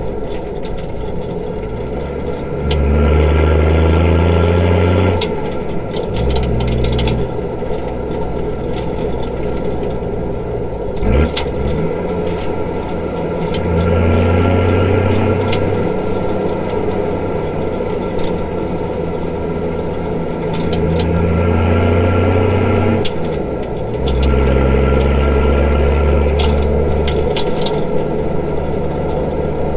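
Nissan Patrol's straight-piped TD42 4.2-litre six-cylinder diesel running on the road, its low exhaust note swelling four times as it pulls under load and dropping back in between. A faint high whistle rises and falls with the pulls.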